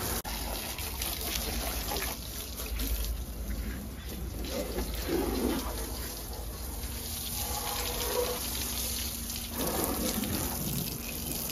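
Water from a tap-fed garden hose spraying onto a car's body panels and wheel arch, a steady hiss and splash of spray. It is the pre-rinse that wets the paint and loosens dust before shampooing.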